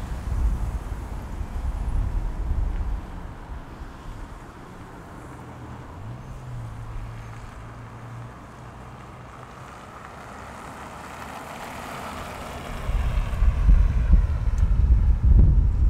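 Wind buffeting the microphone, dying down after about three seconds to leave a low steady vehicle engine hum. A vehicle then passes close by with a swelling rush near the end, as the wind rumble returns.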